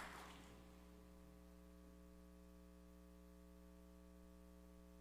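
Near silence with a faint steady electrical hum; the last of the applause dies away in the first half second.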